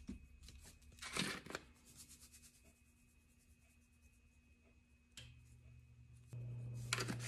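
Spice shakers shaken over raw chicken breasts: short rattling bursts about a second in and again near the end, with faint patter of seasoning between. A low steady hum comes in after about six seconds.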